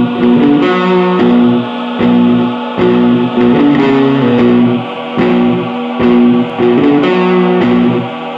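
Theme music led by electric guitar, with a steady pulsing rhythm.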